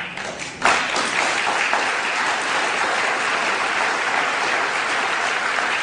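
Audience applauding, breaking out about half a second in and holding steady.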